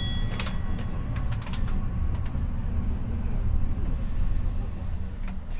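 Sapporo streetcar running, a steady low rumble of motors and wheels on rails heard from inside the cab. A short ringing tone with clicks comes right at the start, a few more clicks follow about two seconds in, and a burst of hiss comes about four seconds in.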